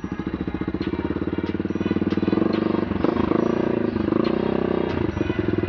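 Single-cylinder motorcycle with an Akrapovic Evo GP exhaust running under way. The exhaust note climbs over the first couple of seconds, eases off about four seconds in, then picks up again.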